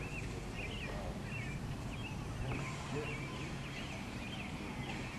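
Songbirds chirping: short, high calls repeating a few times a second over a steady low background rumble.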